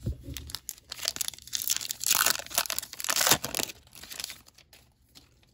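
Plastic wrapper of a 2021 Topps Heritage High Number baseball card pack being torn open and crinkled by hand, a crackling rip that dies away about four seconds in.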